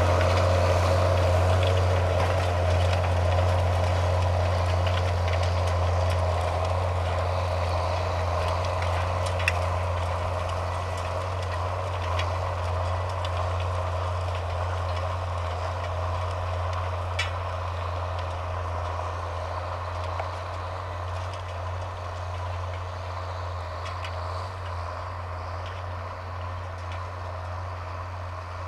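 Farm tractor engine running steadily with a deep, even hum, growing gradually fainter.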